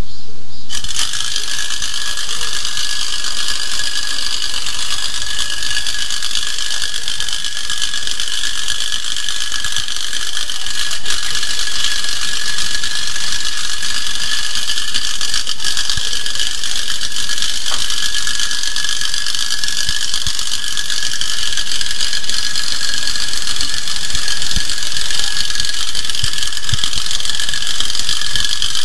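Clockwork spring motor of a Kovap tinplate ladybird toy running as it crawls across a table. It starts about a second in and gives a steady, high-pitched mechanical whir with a constant buzzing tone.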